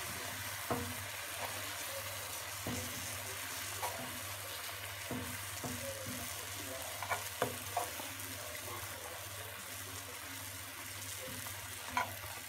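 Sugar syrup sizzling and bubbling steadily around orange slices in a nonstick pan, with a few light clicks of a metal spoon against the pan as the slices are lifted out.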